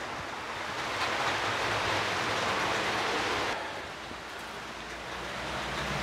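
Rain heard from indoors, a steady rushing hiss that grows louder about a second in, drops back suddenly around halfway, then builds again.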